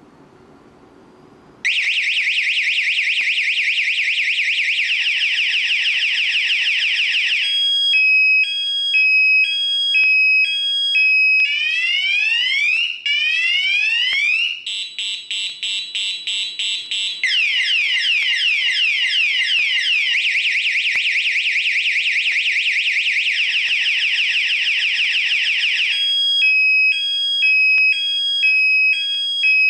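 Security alarm siren going off about two seconds in, loud and electronic. It cycles through several tones: fast repeated rising sweeps, a two-tone hi-lo alternation, slower rising whoops and a rapid pulsing tone, then back to the sweeps and the hi-lo.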